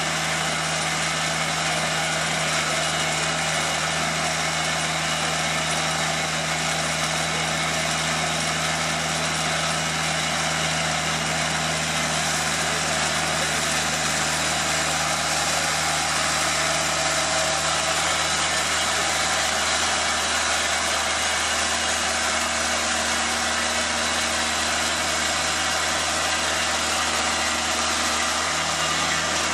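TimberKing 2000 portable band sawmill running steadily, its engine driving the band blade through a log of blue quandong (Elaeocarpus grandis) during a cutting pass. A steady low engine note sits under the hiss of the blade in the wood. Part of the low note drops away about two-thirds of the way through and comes back near the end.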